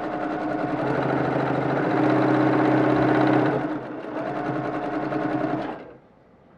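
Brother PQ1500SL straight-stitch sewing machine running, stitching through fabric at speed. It runs loudest around the middle, eases off briefly about four seconds in, picks up again and stops just before the end.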